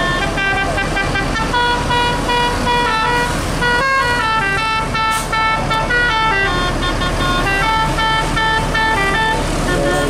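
Bus telolet musical air horns playing a tune of steady notes that step from pitch to pitch, several horns sounding together, over the low rumble of engines. A short hiss sounds about five seconds in.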